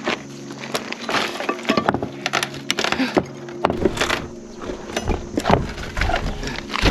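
Irregular knocks, cracks and clinks of old timber being pried and hammered apart to work out an old nail.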